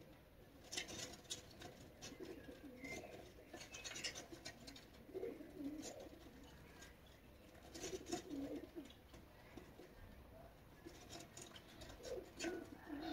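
Faint outdoor birdsong: a dove cooing in a few low phrases, among brief high chirps.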